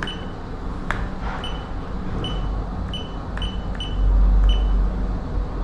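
Control-panel keypad on an active harmonic filter / static var generator beeping as parameters are keyed in: about seven short, high beeps at uneven intervals, with faint key clicks. A steady low hum runs underneath, and a low rumble swells about four seconds in.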